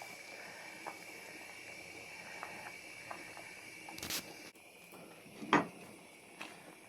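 Cooking-pot sounds over a faint steady hiss: light clicks, a short rustle about four seconds in and one louder knock about five and a half seconds in, as chopped herbs and spinach go into the pot.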